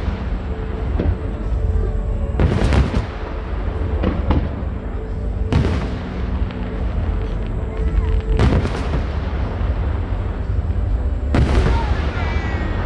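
Aerial fireworks shells bursting: four big booms about three seconds apart, with smaller pops between them. Music plays underneath.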